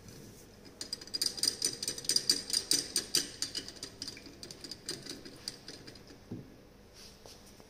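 Solution being stirred in a glass beaker after a drop of titrant is added: rapid, irregular clinking of glass against glass, each click ringing briefly. It starts about a second in and dies away after about six seconds.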